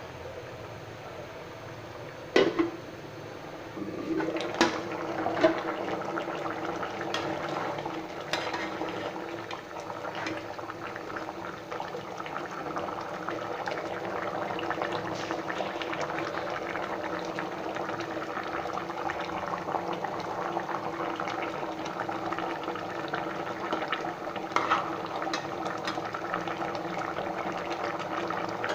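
Curry bubbling and simmering steadily in a cooking pot, with a few sharp knocks of a utensil against the pot in the first few seconds.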